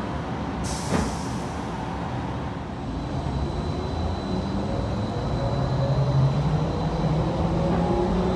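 DFW Skylink people-mover train pulling away once its doors have closed: the electric drive's whine rises steadily in pitch as it gathers speed, over the rumble of the running gear. A brief hiss sounds just under a second in.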